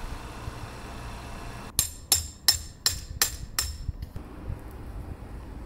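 Six quick, sharp metallic strikes, about three a second, each ringing briefly, over a low rumble.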